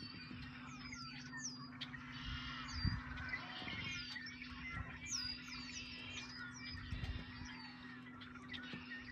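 A chorus of marsh birds calling, with many overlapping squawks, chirps and short downward-hooked whistles, over a steady low hum. Two dull low thumps come about three and seven seconds in.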